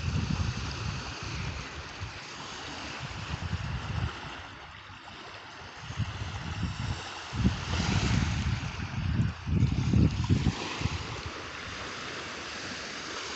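Ocean surf washing steadily, with wind buffeting the microphone in gusts.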